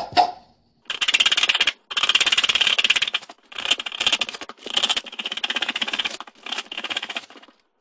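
Scissors cutting through denim jeans in about six long cuts with short pauses between. Each cut is a dry rasp of rapid fine clicks lasting most of a second.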